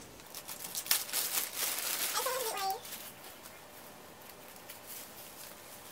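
Clear plastic wig bag crinkling and rustling as it is opened and the wig is pulled out, stopping about three seconds in. Near the end of the crinkling there is a short, wavering voice-like sound.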